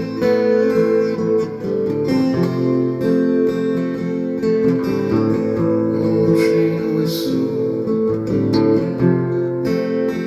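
Acoustic guitar strumming chords in an instrumental passage of a song, with no singing.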